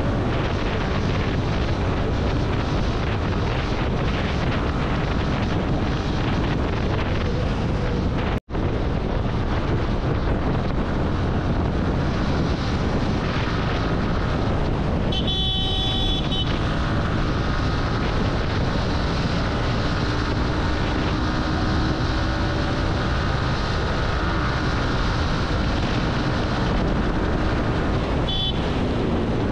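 Steady wind and road rush of a motorcycle ride at highway speed, broken by a split-second gap about eight seconds in. A vehicle horn honks for about a second and a half midway, and again briefly near the end.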